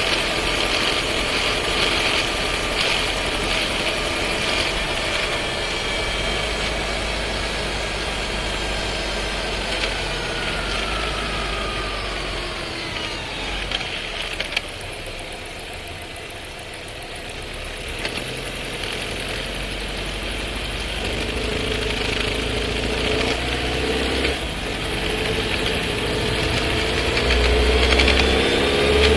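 Skoda Scala 1.5 TSI heard from inside the cabin, its engine and seven-speed dry-clutch DSG gearbox falling in pitch as the car slows. About halfway through comes a loud downshift with a few sharp clunks. Then it pulls away with a rattle and vibration that the owner finds abnormal in this nearly new car.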